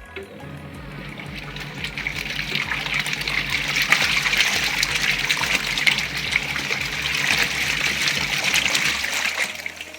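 Washing machine running a wash: water churning and splashing in the tub over a steady motor hum, both stopping shortly before the end.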